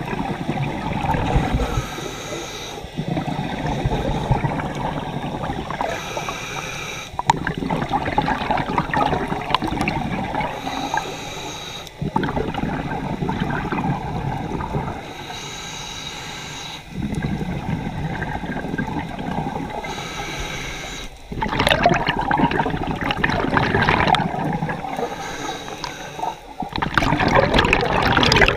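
Scuba regulator breathing heard through an underwater camera housing: long stretches of exhaled bubbles gurgling alternate with short inhale hisses, about six breaths at roughly 4.5-second intervals. The bubbling grows louder from about two-thirds of the way in.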